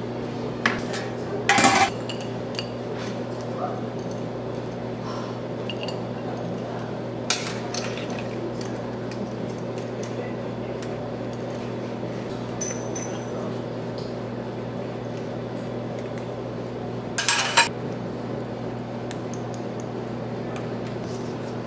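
Metal tongs and stainless steel serving-pan lids clinking against steel pans and ceramic dishes: a few sharp clatters, about two seconds in, around seven seconds in and a short cluster near seventeen seconds, over a steady low hum.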